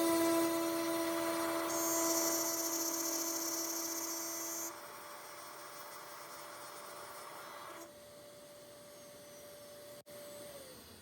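CNC router spindle running with a steady whine while cutting a keyhole slot into a walnut plaque; the cutting is loudest for about the first five seconds. Near the end the spindle winds down, its pitch falling.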